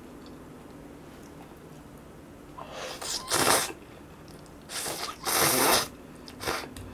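Spicy instant ramen noodles being slurped into the mouth: two long hissing slurps about three and five seconds in, and a short one near the end.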